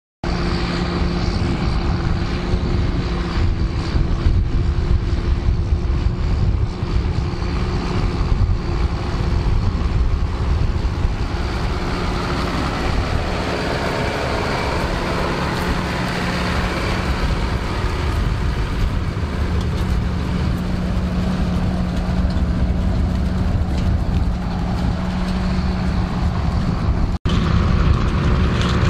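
John Deere 7810 tractor's six-cylinder diesel engine running steadily under load, pulling a 6 m spring-tine cultivator. The sound cuts out for an instant near the end.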